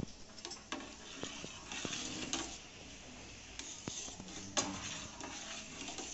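Spoon stirring a thin sago mixture in a steel pot, with scattered light clicks and scrapes of the utensil against the metal.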